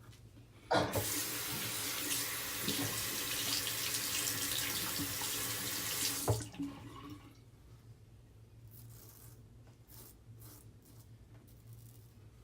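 Bathroom sink tap turned on with a knock, running steadily for about five and a half seconds, then shut off. Faint, brief scraping strokes follow.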